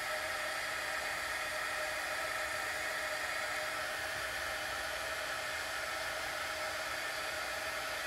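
Small handheld hot-air heat gun running steadily, its fan blowing hot air to shrink heat-shrink tubing over freshly soldered wire joints.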